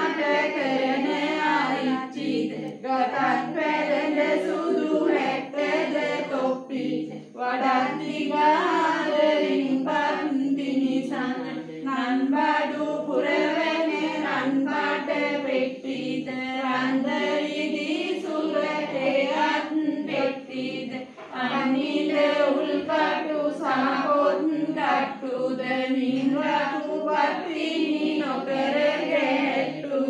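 A group of women chanting prayers together in unison, a steady recited melody that breaks briefly twice.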